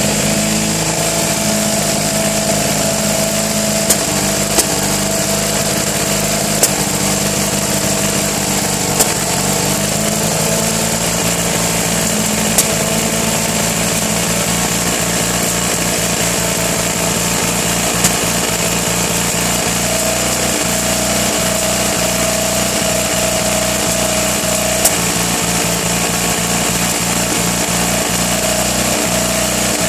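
1959 Fiat 500's 479 cc air-cooled twin-cylinder engine, freshly rebuilt with a new camshaft and lifters, running on a test stand. It runs pretty rough, with a few sharp pops scattered through, and its note changes a little about two-thirds of the way through.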